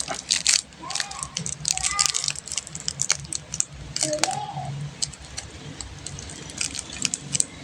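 Plastic candy wrappers crinkling and crackling as sweets are unwrapped, a dense run of irregular sharp crackles.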